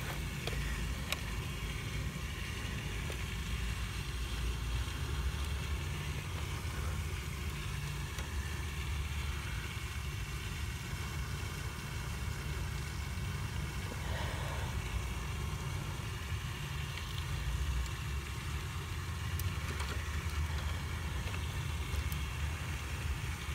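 Steady low rumble of a machine or engine running, with no clear change throughout.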